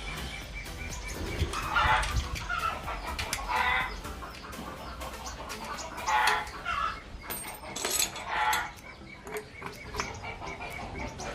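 Chickens clucking and squawking in several short bursts, with small clicks and taps in between.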